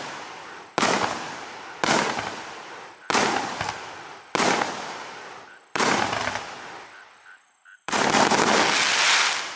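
Klasek C3645SE 'Wild' firework firing: a loud bang about every second and a quarter, each trailing off. Near the end comes a dense, continuous volley of about a second and a half.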